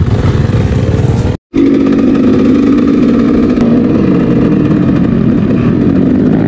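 Motorcycle engine running steadily while riding, loud and close. It breaks off into silence for a moment about a second and a half in, then carries on at a steady, slightly higher note.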